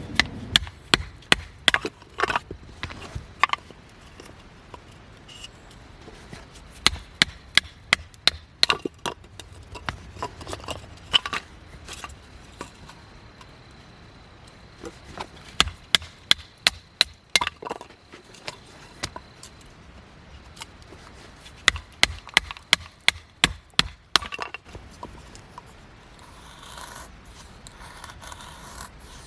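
Sharp knocks on wood in quick runs of several strikes, with short pauses between the runs.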